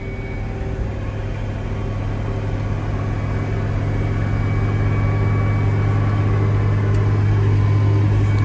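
Case Steiger 9380 Quad Track diesel engine running steadily under load as the tractor climbs a steep slope, heard from inside the cab: a deep, even drone that grows gradually louder.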